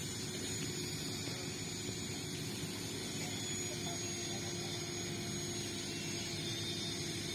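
Steady machine noise with a constant low hum and a faint high whine, unchanging throughout.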